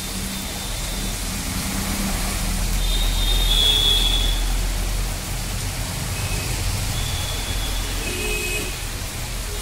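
Steady hiss of oil sizzling in an electric deep fryer, with a low electrical hum underneath.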